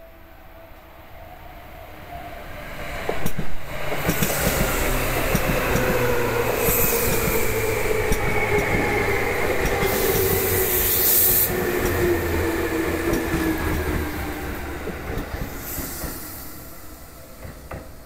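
Seibu 2000 series eight-car electric train passing at the level crossing as it slows for its station stop. The wheels rumble and click over the rails, and a whine falls steadily in pitch as the train brakes. High hissing squeals come twice about halfway through, and the sound fades near the end. A crossing warning bell rings steadily at the start, before the train arrives about three seconds in.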